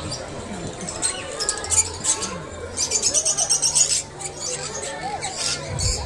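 Caged pet birds chirping and squawking, with a fast run of high, rapidly repeated chirps about three seconds in that lasts about a second.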